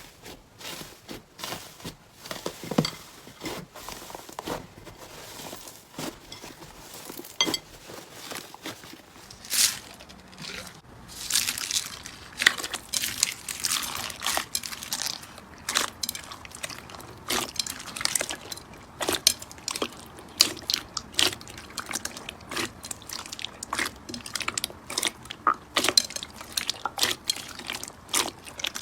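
Slime being handled, giving a run of irregular sticky clicks, small pops and crackles, which grow busier and brighter from about eleven seconds in.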